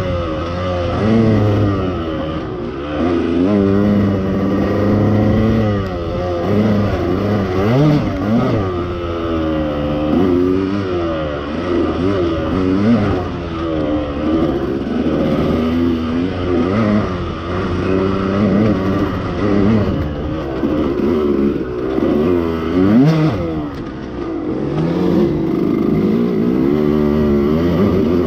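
KTM two-stroke off-road dirt bike engine, heard from the rider's helmet, revving up and dropping back again and again as the throttle is worked through the trail.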